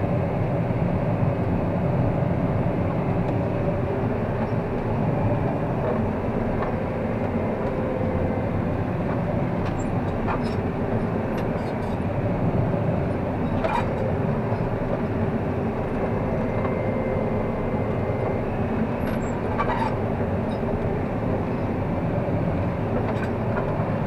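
Combine harvester running steadily while harvesting corn, heard from inside the cab: an even drone of engine and threshing machinery, with a few faint clicks.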